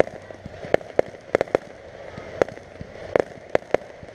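Fireworks going off: about nine sharp bangs and pops at irregular intervals, several in quick clusters, over a steady background hiss.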